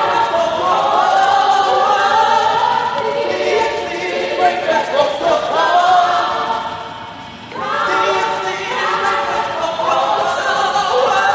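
Gospel choir singing in several voice parts with no audible accompaniment, with a short break about seven seconds in before the voices come back in.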